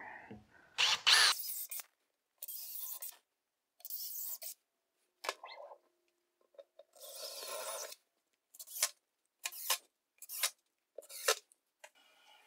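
Cordless drill/driver driving screws into a plywood sheet: a series of separate runs of a second or less, the last several short and quick together.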